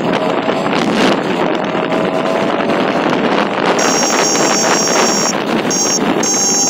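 Motorcycle on the move: steady wind rush over the microphone with the engine running underneath. A thin high whistle comes and goes about four seconds in and again near the end.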